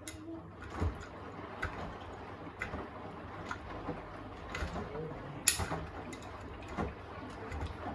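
Beko WTK104121A front-loading washing machine in its wash phase: the drum turns with a steady motor hum while water and laundry slosh and drop inside, giving soft knocks about once a second.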